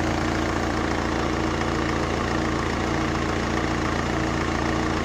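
Renault Laguna II's 1.9 dCi F9Q750 four-cylinder turbodiesel idling steadily.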